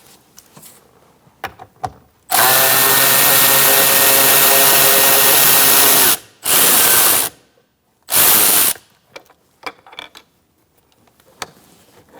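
Power drill driving a 7 mm socket to spin out a door-panel bolt. It runs steadily for about four seconds, then gives two short bursts, with light clicks of handling before and after.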